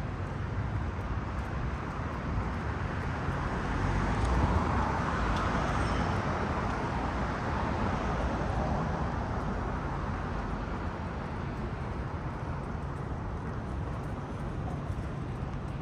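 Steady city street traffic noise, with a vehicle passing and swelling to its loudest about four to six seconds in before fading back.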